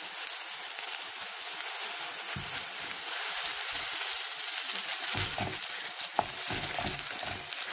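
Onion, ginger and garlic paste sizzling steadily in hot oil in a metal pot. In the second half a wooden spatula stirs and scrapes through it in irregular strokes.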